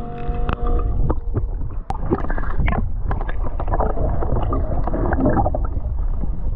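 Muffled underwater sound picked up by a camera hanging below a boat: a low rumble and gurgling water, with scattered clicks and knocks.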